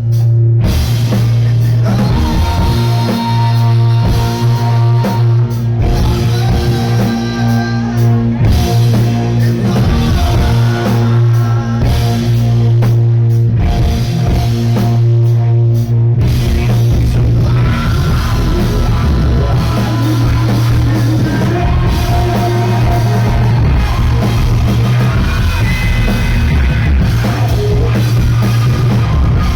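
Live rock band playing loudly: overdriven electric guitars over a drum kit and bass, heard as a loud, distorted concert recording.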